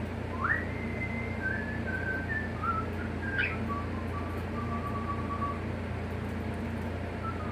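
Soft whistling of a slow tune: one note glides up and is held for about a second, then a string of lower, longer held notes steps slowly downward. A steady low hum runs underneath.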